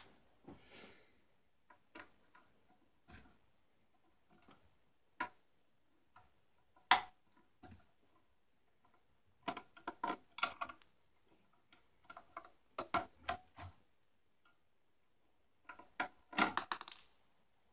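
Scattered small clicks, taps and knocks of hands working on a Pelco dome camera's plastic housing and small screws, with one sharp click about seven seconds in and quick runs of clicks around ten, thirteen and sixteen seconds in.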